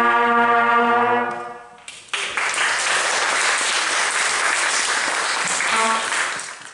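Brass ensemble of trumpets and trombones holding a final chord that dies away about two seconds in, followed by audience applause.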